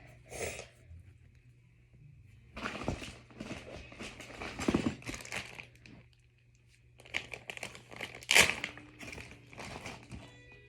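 Plastic fidget toys being handled and shuffled around, crinkling and rustling in two stretches, with a sharp clack past the middle.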